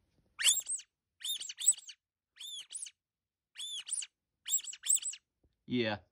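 Scrubbing Bubbles mascot squeaky toy squeezed repeatedly by hand, giving short high-pitched squeaks in quick pairs, about five pairs roughly a second apart.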